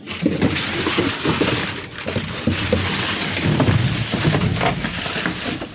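Rubbish in a skip being poked and dragged with a stick: steady rustling and crunching of bags and debris.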